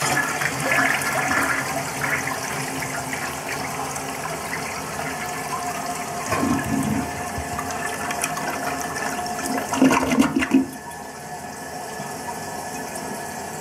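1955 Eljer toilet flushing: water swirls and drains from the bowl, with a louder surge about ten seconds in. After that the sound drops to a quieter, steady rush as the toilet refills.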